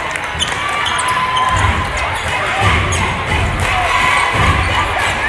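Sounds of an indoor basketball game: sneakers squeaking on the hardwood court and a basketball bouncing, with repeated thumps from about a second and a half in, over the chatter of spectators echoing in the gym.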